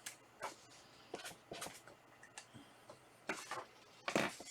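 Irregular light clicks and brief rubbing noises from small objects being handled, about eight of them, with the two loudest near the end.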